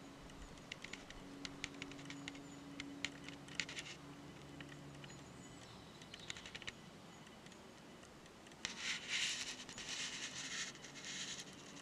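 Faint scattered clicks and ticks for the first few seconds and again around six seconds in, over a faint low hum. About nine seconds in come two or three seconds of louder rustling and scraping.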